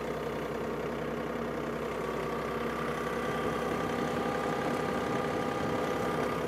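John Deere compact tractor's diesel engine running steadily as the tractor drives and turns, a little louder from about two seconds in.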